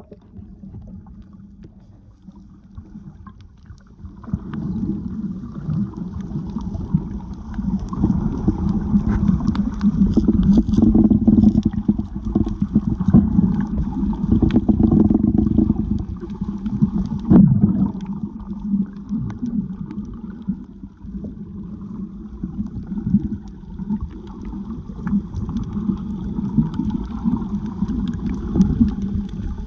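Low rumble and sloshing of moving water, as picked up by a camera underwater while snorkeling, with scattered small clicks; it grows louder about four seconds in.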